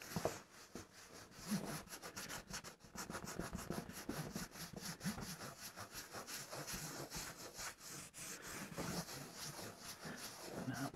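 Cloth rag with polish being rubbed over glossy printed cardboard: faint, steady rubbing in quick repeated strokes.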